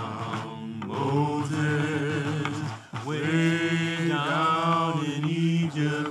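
Unaccompanied low male voice singing slow, long-held notes in two phrases, the first starting about a second in and the second about three seconds in.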